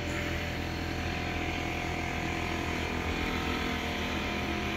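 Air compressor running steadily, building up pressure for the framing nailer: a constant mechanical drone with several held tones over a low hum, even in loudness throughout.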